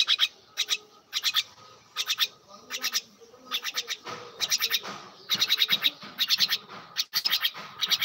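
A myna pecking and tearing at a dry palm husk makes bursts of dry, scratchy clicks, several quick clicks to a burst, about one burst every half second to a second.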